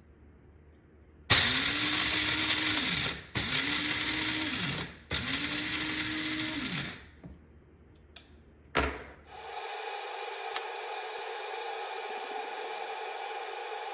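An electric coffee grinder pulsed three times, each burst of the motor spinning up, running about two seconds and winding down. A click follows, then a steady machine hum starts and runs on.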